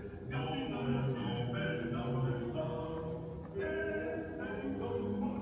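Choir-style vocal music: a group of voices singing held notes in phrases, with brief pauses between phrases just after the start and about three and a half seconds in.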